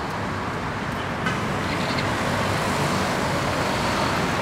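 Street traffic ambience: a steady wash of car engines and tyre noise from passing road traffic, with one brief click about a second in.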